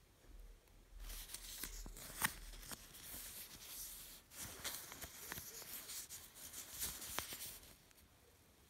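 Rustling and scratching as fingers handle a cotton shirt and its paper-like care label, with a few sharp clicks; it starts about a second in and stops shortly before the end, the loudest click coming about two seconds in.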